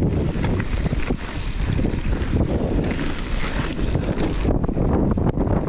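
Wind buffeting the camera microphone at speed on a fast mountain bike descent, over the crunch of knobby tyres on a dirt and gravel trail and the bike rattling over bumps. The high hiss of the wind eases about four and a half seconds in.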